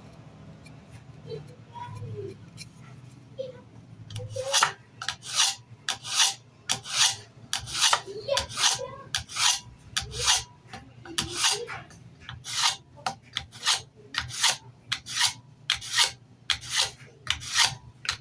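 Steel knife blade drawn in quick, even strokes across an abrasive sharpener, honing the edge of a fillet knife. The strokes come about two a second and start about four seconds in.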